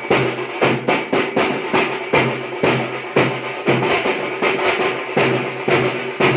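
Drums beaten in a fast, steady rhythm over a steady droning tone, as ritual percussion.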